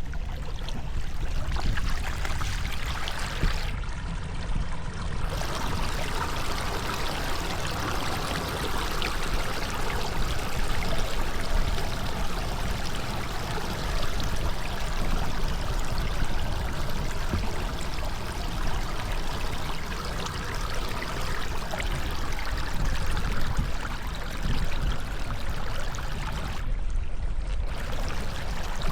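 Floodwater flowing in a steady rush, with a low rumble underneath.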